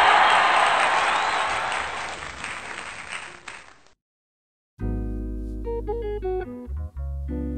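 Crowd applause that fades out over about four seconds. After a short silence, background music with a bass line starts about five seconds in.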